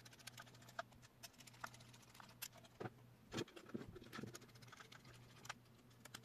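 Faint, irregular clicks and taps of a hex screwdriver driving small M3 bolts into a 3D-printed plastic axle brace, with the plastic chassis being handled.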